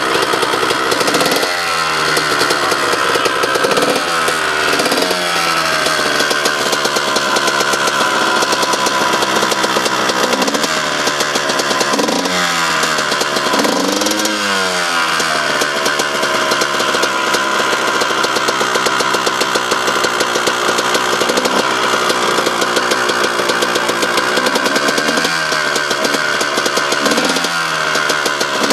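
Kawasaki dirt bike engine idling and being revved with twists of the throttle: repeated short revs that rise and fall in pitch, the biggest cluster about halfway through, settling back to a steady idle between.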